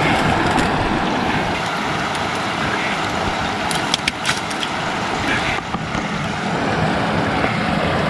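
Floodwater rushing over a small dam and down a creek's rapids: a loud, steady roar of water. A few short clicks come about four seconds in.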